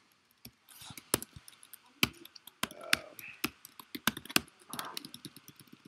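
Typing on a computer keyboard: irregular keystrokes, with a quicker run of lighter taps near the end.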